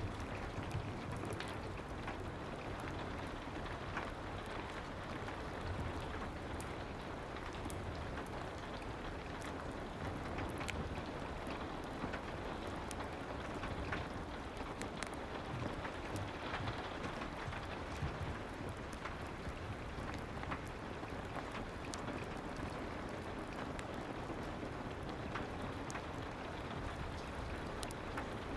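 Steady soft rain ambience mixed with a fireplace, with scattered sharp crackles throughout.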